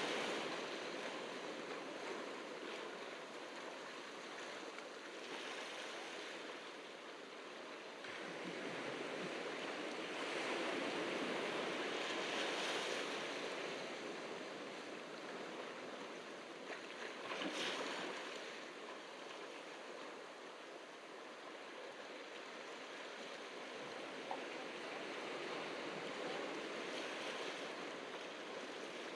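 Ocean surf washing onto the beach, swelling and easing every few seconds, with one louder wave about two-thirds of the way through.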